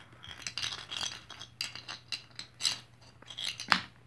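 Handling noise from toy figures being moved over a concrete floor: a string of small clicks, taps and rustles, with one louder knock near the end.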